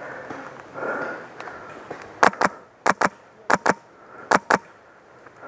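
Airsoft gun fire: eight sharp snaps in four quick pairs, close together over about two and a half seconds in the middle.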